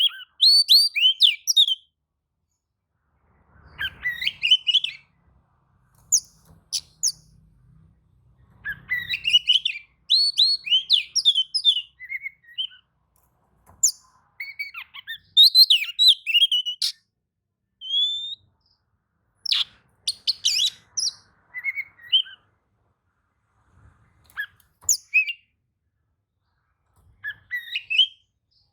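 Oriental magpie-robin (kacer) singing: short phrases of fast, varied chirps and whistled notes, each a second or two long, with brief pauses between them. It is the excited song that kacer keepers play to get other magpie-robins to answer.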